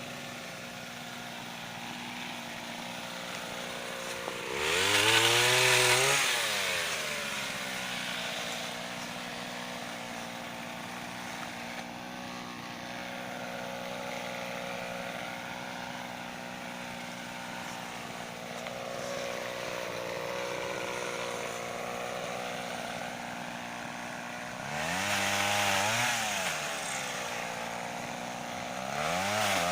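Pole saw driven by a Mitsubishi TL26 two-stroke brushcutter engine, idling steadily and revving up briefly for cuts through branches. It revs three times: about five seconds in, and twice near the end.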